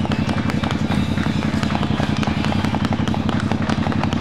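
Cruiser motorcycle engine idling at a standstill, its exhaust making a rapid, even pulsing.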